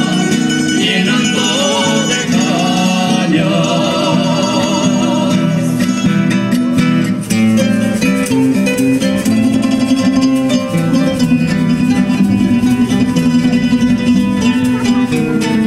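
Live Spanish folk music: mixed voices singing over acoustic guitars for the first few seconds, then an instrumental passage of quick, dense plucking on guitars and bandurria-type lutes.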